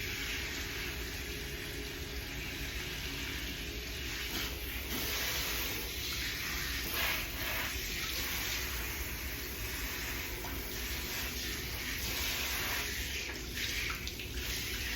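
Warm water running from a salon shampoo-bowl tap as hair is rinsed, a steady rush of water that changes its tone a few times.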